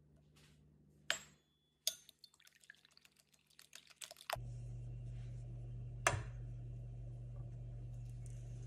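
A fork clinks against a ceramic bowl as raw eggs and chopped vegetables are stirred together, in quick irregular taps. About four seconds in, this gives way to the steady hiss of potato rings frying in hot oil in a pan, with a single knock a little later as another ring goes in.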